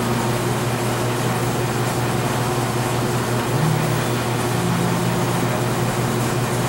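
Steady hum and rushing noise of running machinery such as a fan. A low drone is held under it, and a second hum tone comes in about three and a half seconds in. No clock ticks stand out.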